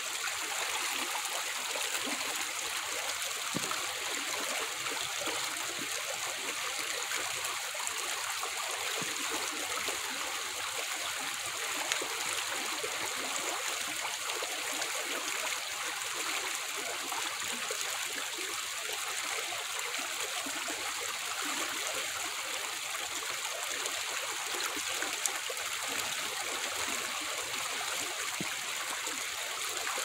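Small, shallow stream flowing steadily over rocks: an even, unbroken sound of running water, mostly high and hissy.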